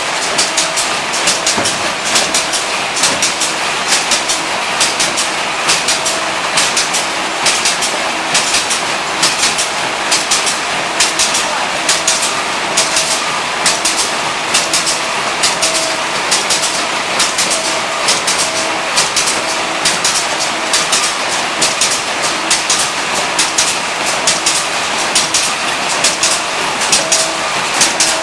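Several vertical form-fill-seal packing machines running together: a steady mechanical clatter of rapid, uneven clicks, with short tones that come and go.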